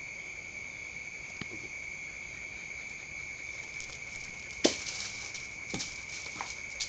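Steady, high-pitched drone of insects, with a few sharp knocks; the loudest knock comes about two-thirds of the way in, and a smaller one follows about a second later.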